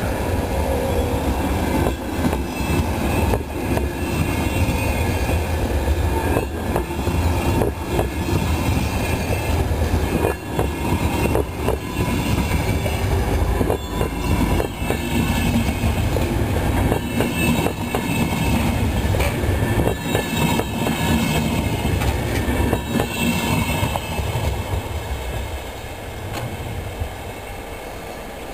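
Finnish Intercity passenger coaches rolling past as the train pulls out of the station, a steady loud rumble with wheels clacking irregularly over rail joints and points. The sound fades away near the end as the last coaches recede.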